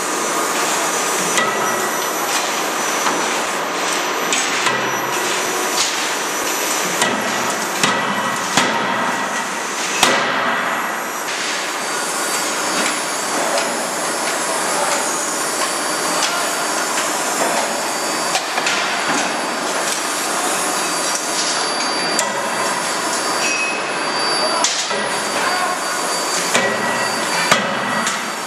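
CNC hydraulic forging hammer striking hot metal, with repeated, irregularly spaced blows over a continuous loud machinery noise.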